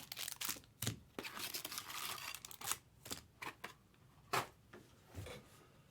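Rustling and crinkling with many short clicks and taps, thinning out after about three seconds, and one sharp click about four and a half seconds in.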